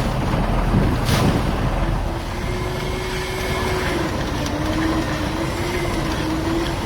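A motor running steadily, with a hum that comes in about two seconds in and wavers slightly in pitch, and a short scrape or knock about a second in.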